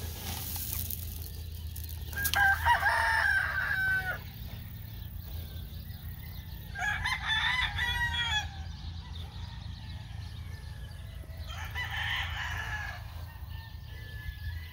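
Gamefowl roosters crowing: three separate crows, about two, seven and twelve seconds in, each lasting a second or two.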